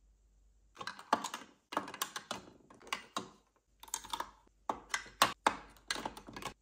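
Plastic makeup tubes and lipstick cases clicking and clattering against each other and a clear acrylic organizer as a hand rummages through them, in quick clusters of taps that start about a second in.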